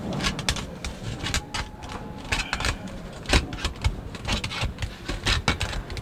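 Irregular clicks, taps and clanks of hand tools working sheet-metal ductwork, over a low background rumble.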